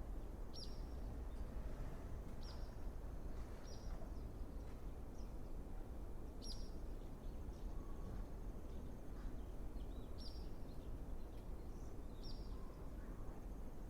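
A bird giving short, high chirps, each a quick downward sweep, repeated about every one to two seconds over a steady low background rumble.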